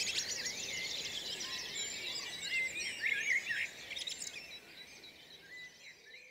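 Dawn chorus of many songbirds singing at once, a dense tangle of whistles, chirps and trills, fading out over the last two seconds or so.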